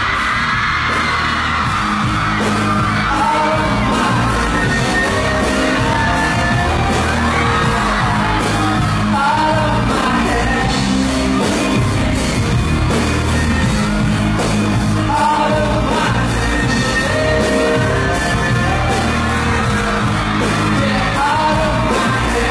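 Loud live pop music with a heavy bass line and a male singer's vocals through a microphone, with audience yells and whoops over it.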